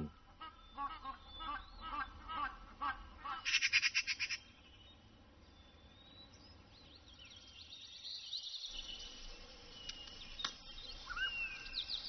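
Crested ibises and magpies calling: a run of repeated short calls for the first few seconds, a brief loud harsh chatter, then quieter thin chirps and whistles toward the end.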